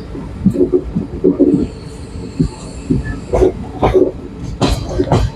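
Passenger train standing at a station platform, with rumbling and a few sharp knocks and clanks about three to five seconds in.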